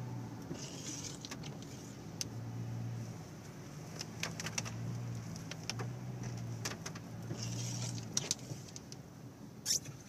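Car driving slowly, heard inside the cabin: a steady low hum of engine and tyres, with scattered light clicks and ticks and one sharper click near the end.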